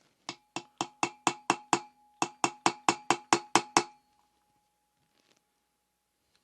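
Hammer tapping a ball bearing into its bore in a Honda Super Cub engine's aluminium crankcase: two runs of about seven or eight quick, sharp metallic strikes, about four a second, with a short pause between, each run leaving a ringing tone. The strikes stop about four seconds in.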